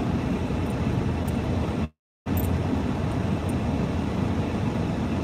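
Steady low rumble of a car cabin, engine and road noise, broken by a brief total dropout of the audio about two seconds in.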